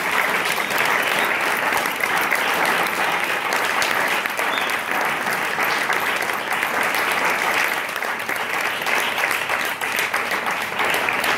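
Audience applauding, a dense round of clapping that thins into more separate claps near the end.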